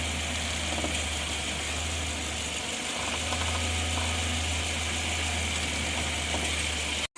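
SUV engine idling steadily, a constant low hum under a broad hiss, with no clear knock standing out.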